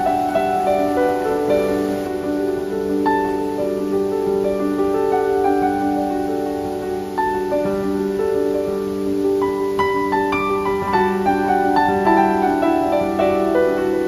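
Background instrumental music: a gentle piano melody over held low notes.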